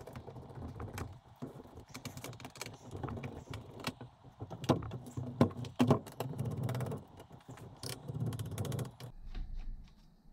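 Precision screwdriver working small screws out of an HP Pavilion laptop's bottom case. The laptop is handled and shifted on the table, giving irregular clicks, knocks and rubbing noises, with the sharpest knocks about halfway through.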